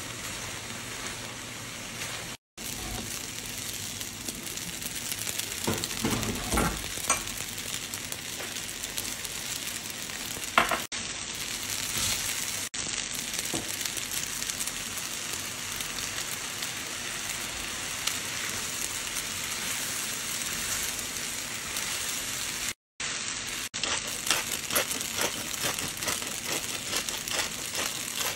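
Pasta and vegetables sizzling in a cast-iron skillet while a spatula stirs and scrapes through them, with a few louder scrapes and clicks. The sound drops out briefly twice.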